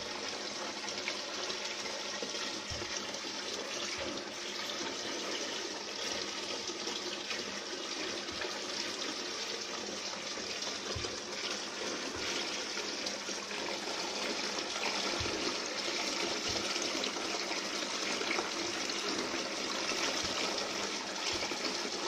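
Water from a homemade tabletop waterfall fountain falling in many thin streams off a wide spillway lip into a shallow basin: a steady splashing.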